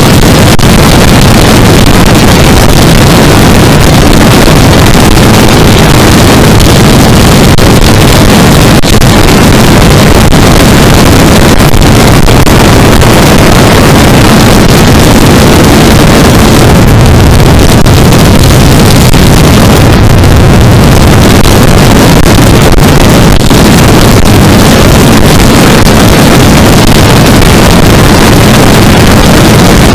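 Yamaha R3's parallel-twin engine running at highway speed, buried in heavy wind noise buffeting the microphone: a loud, steady rush without a break.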